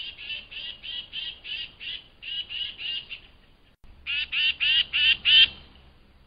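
Tufted titmouse calling: a rapid run of short, repeated notes at about four a second, then after a pause of about a second a shorter, louder run of five.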